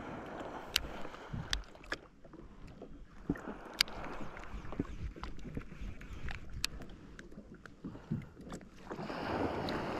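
Small waves lapping and washing against a fishing kayak's hull, swelling a little near the end, with scattered sharp clicks from the fishing rod and baitcasting reel being worked.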